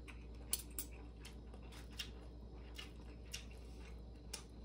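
Quiet chewing of a mouthful of steamed rice, with scattered short soft clicks.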